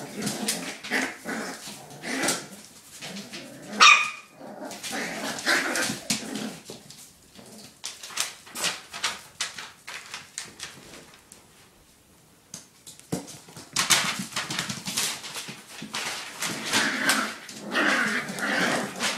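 Puppies playing and scuffling on newspaper, with yapping barks and whimpers throughout and one loud, high yelp about four seconds in. The sound thins out for a few seconds past the middle, then the yapping picks up again.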